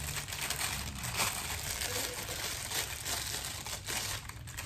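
Clear plastic bag crinkling and rustling as it is worked open and pulled off a camera lens, over a steady low hum.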